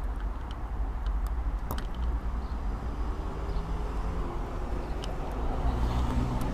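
Road traffic: a steady low rumble with a passing motor vehicle's engine hum that grows louder near the end. A few faint sharp clicks, from lock picks working the pins of an Abus 90/50 padlock, sit over it.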